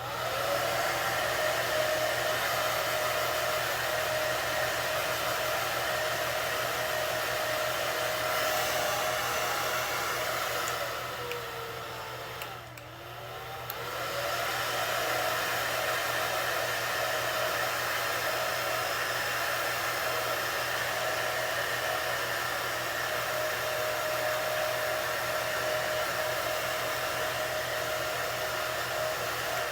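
Handheld hair dryer running steadily, blowing into a wig cap to heat-set the synthetic fibres for volume. About twelve seconds in, its motor slows and picks back up, and it does so again near the end.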